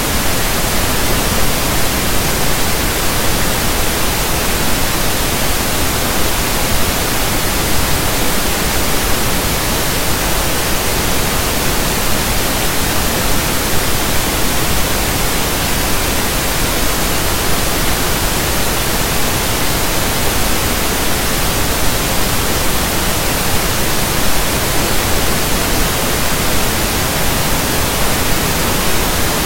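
Loud, steady static hiss, even from low to high pitch and unchanging throughout, with nothing else audible: electronic noise in the recording rather than any sound from the scene.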